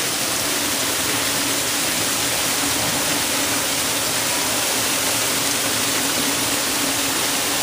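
Torrential thunderstorm rain pouring down in a loud, steady hiss.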